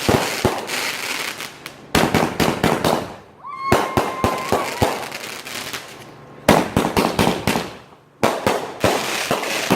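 The Shizzler multi-shot consumer firework going off: volleys of sharp bangs and crackling that start suddenly every second and a half or two, with a brief high whistle-like tone about four seconds in.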